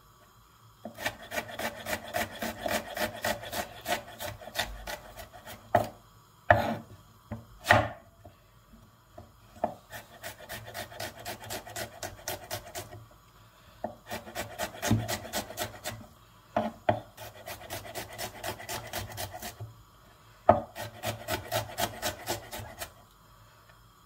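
Chef's knife rapidly chopping onion on a wooden cutting board: runs of quick taps, about six a second, broken by short pauses and a few single louder knocks.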